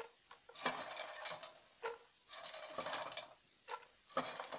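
Popped popcorn being tipped into a pot of melted sugar, rustling and tapping against the pot in several short bursts with light clicks between them.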